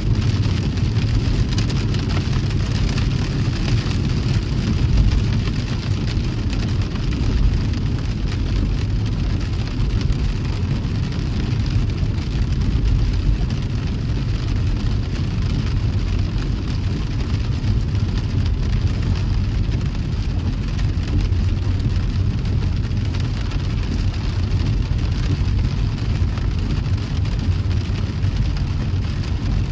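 A car driving in the rain: a steady low rumble of the moving car with the hiss of rain and wet road over it.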